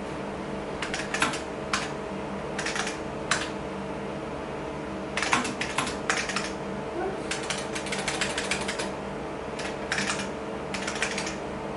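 Typing on an IBM Model F keyboard: sharp key clicks in short runs of a few strokes, with pauses between, over a steady hum.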